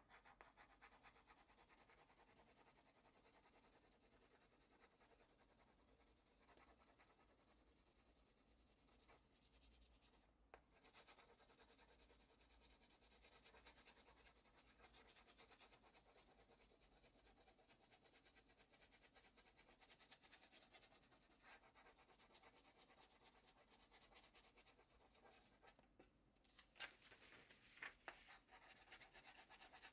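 Faint scratching of graphite rubbed back and forth over paper in quick strokes, shading the back of a print to make a transfer sheet. There is a short pause about ten seconds in and another near the end, followed by a few louder strokes.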